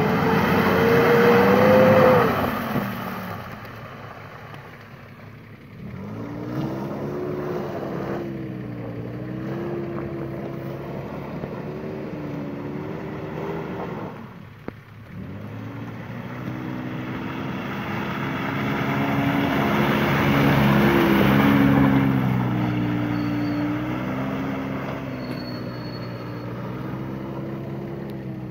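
Mitsubishi Pajero's 3.5 V6 petrol engine revving unevenly as the SUV slithers round in mud, its pitch wavering up and down. The engine eases off about five seconds in and again about halfway through, then builds back up.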